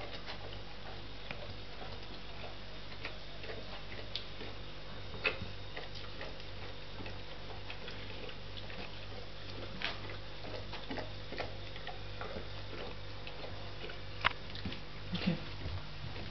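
A guide dog puppy eating from a ceramic food bowl: scattered crunching clicks of food and bowl, a few louder than the rest, over a steady low hum.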